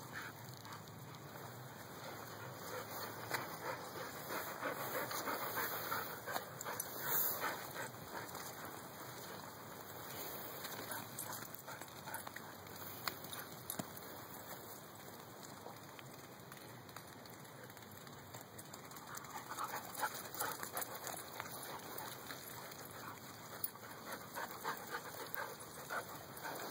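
Huskies panting and scuffling as they play on grass, with louder stretches of breathing and movement a few seconds in and again around twenty seconds in.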